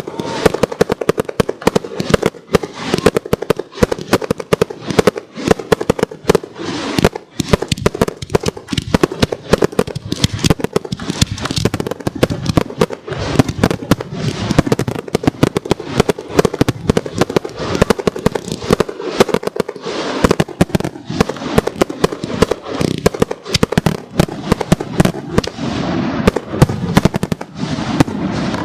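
Professional aerial fireworks display: a dense, continuous barrage of shell bursts and crackling bangs, many per second.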